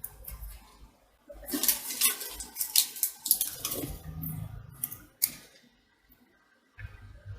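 Hands working at a repair bench: sharp clicks, then a few seconds of dense clattering and rustling, followed by a few quieter knocks near the end.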